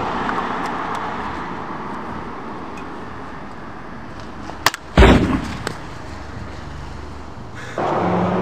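A sharp click, then a loud gunshot-like bang about five seconds in that rings out and fades. A short burst with a steady low hum comes near the end.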